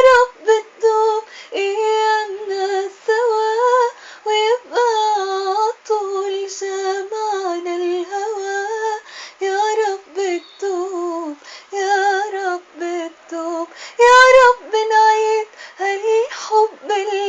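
A female voice singing an Arabic song unaccompanied, in short ornamented phrases with brief breaks between them, rising to a louder held note with vibrato about 14 seconds in.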